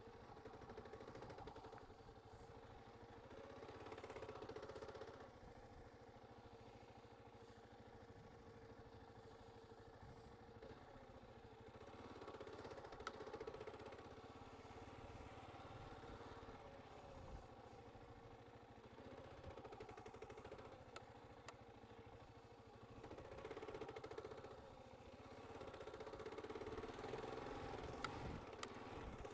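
Dual-sport motorcycle engine heard faintly while riding slowly over a rough dirt track, swelling and easing several times with the throttle, with a few sharp knocks from the bumpy ground.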